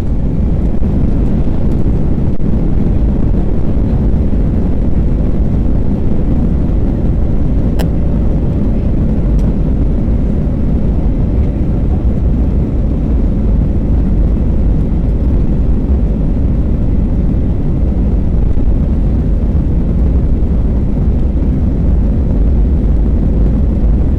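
Steady engine and airflow noise inside the cabin of an Airbus A321 in flight, a constant low rumble that does not change.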